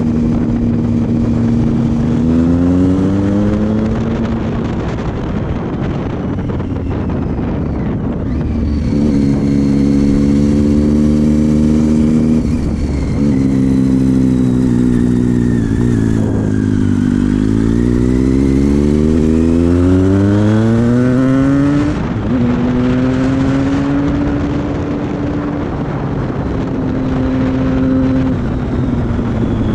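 Triumph Street Triple's three-cylinder engine through a Leo Vince GP aftermarket exhaust, heard from on the bike while riding: the note rises under throttle, fades back a few seconds in, climbs again, falls away as the throttle closes for a bend around the middle, then climbs hard coming out and settles to a steadier, lower drone near the end. Wind rushes over the microphone throughout.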